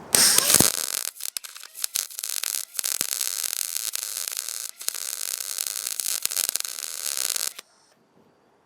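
Wire-feed welder arc crackling as it fills a bolt hole in a car hood's sheet metal against a ceramic backer. It starts and stops a few times in the first couple of seconds, then runs steadily until it cuts off near the end. It is laying more weld than wanted, which the welder puts down to the wire feed probably being set too high.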